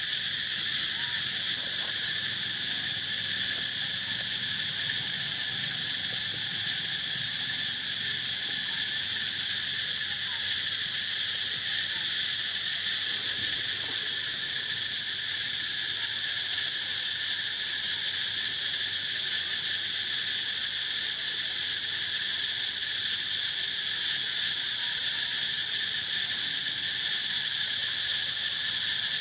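A steady chorus of insects: a constant high-pitched drone that never breaks or changes.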